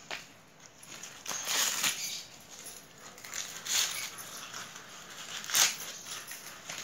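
Green husk leaves being torn and peeled by hand from an ear of sweet corn: a few separate rustling rips, the sharpest about two-thirds of the way through.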